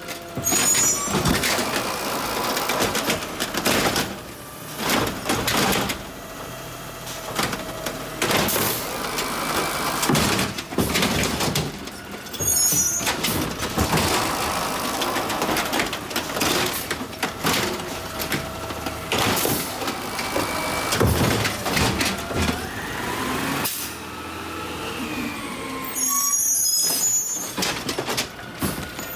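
Automated side-loader garbage truck collecting curbside carts: the diesel engine runs and revs while the hydraulic lift arm whines, with repeated bangs and knocks as carts are lifted, dumped and set back down. Short air hisses come a few times, about a second in, near the middle and near the end.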